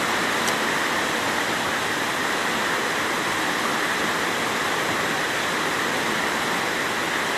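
Fast-flowing floodwater rushing in a steady, unbroken noise.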